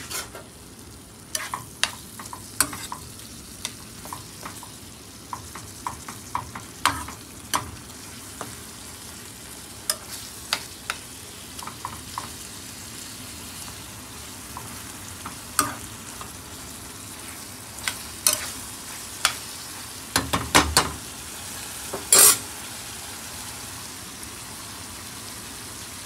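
Ground beef taco meat sizzling in a frying pan and being stirred with a spoon: a steady sizzle with scattered sharp scrapes and clinks of the spoon against the pan, loudest in a cluster about 20 seconds in.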